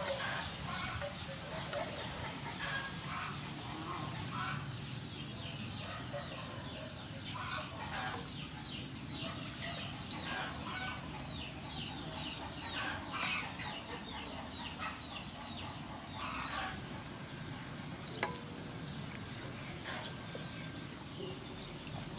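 Chickens clucking repeatedly, with one sharp click late on.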